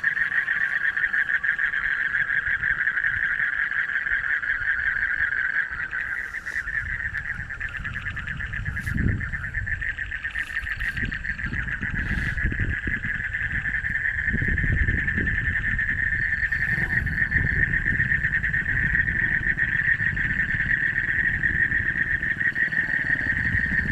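A chorus of frogs calling continuously, a dense high-pitched rapid trilling that never lets up, over an irregular low rumble.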